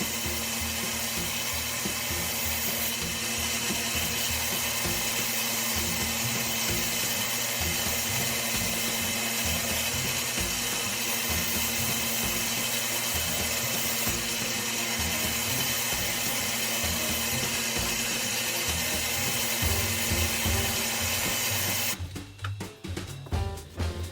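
A power tool running steadily with a constant whir. It cuts off suddenly near the end, and music with a drum beat takes over.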